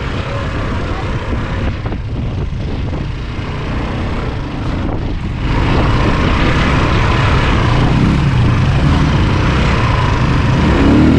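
ATV engine running under steady throttle, a continuous drone that gets louder about halfway through.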